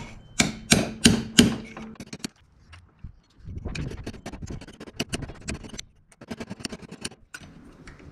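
Hammer tapping a punch to drive a steel spacer ring and new seals deeper into a hydraulic loader cylinder's bore: four sharp metal strikes, about three a second, in the first second and a half. Then light metallic clicks and rattles as the ring and tools are handled.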